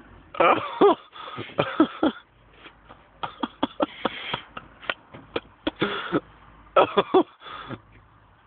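A man with a whole Mars bar crammed in his mouth coughing and making muffled throat noises while chewing. The noises come in short loud bursts, with small clicks between them.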